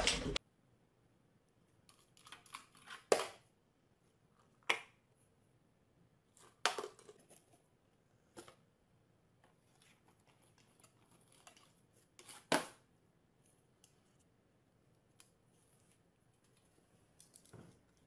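Scattered light clicks and knocks over near silence, about eight in all and spread unevenly, the loudest a knock about twelve and a half seconds in.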